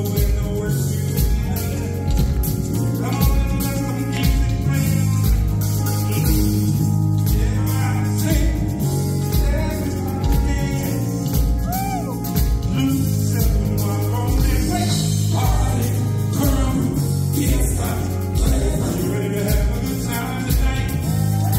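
Live band music with a male singer singing over a steady beat of drums and bass.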